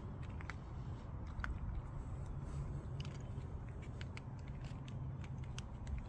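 Footsteps crunching lightly and irregularly on playground wood-chip mulch, over a low steady background rumble.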